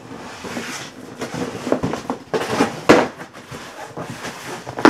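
A large cardboard box being opened by hand: packing tape being pulled and torn and cardboard rustling and scraping, with sharp louder noises about three seconds in and again at the very end.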